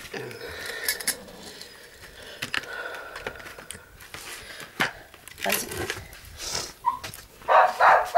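Puppy barking in short sharp bursts, once around the middle and three in quick succession near the end, with light rustling and knocks in between.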